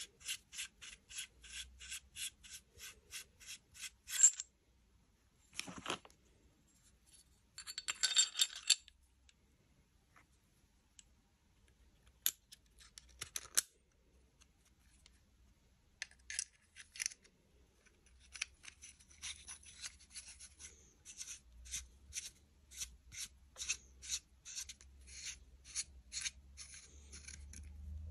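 Small metal parts of a 9 mm pistol handled by hand. It opens with a quick, even run of small metallic clicks, about three a second, as a compensator is twisted onto the threaded barrel. A few sharper clicks of metal parts follow, then another long run of small clicks.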